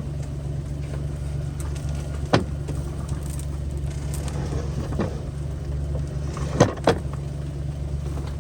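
Vehicle engine running with a steady low hum, with a few sharp knocks or rattles: one a couple of seconds in, one in the middle and two close together near the end.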